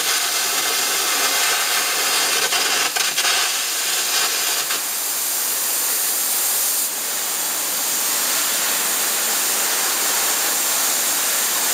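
Arc gouging: the loud, steady hiss of the compressed-air jet, with a rough crackle from the arc that smooths out about five seconds in.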